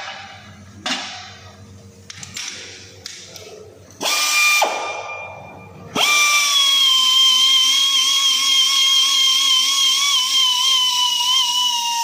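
Hand-held pneumatic die grinder briefly triggered about four seconds in, then run steadily from about six seconds. It gives a high, steady whine over a hiss of air, and the pitch sags slightly near the end. Before it come a few light knocks of tools being handled.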